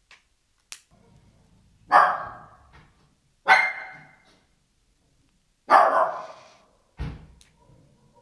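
A dog barking: three loud barks a second and a half to two seconds apart, each trailing off in a short echo, then a softer one near the end.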